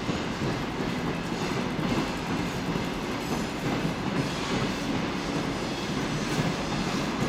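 Freight train of loaded container flatcars rolling past, with a steady rumble and the wheels clattering over the rails.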